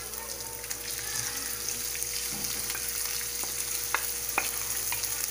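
Shredded chicken breast sizzling as it goes into hot oil in a frying pan, while a wooden spoon scrapes it out of a bowl. A few light taps of the spoon are heard about four seconds in.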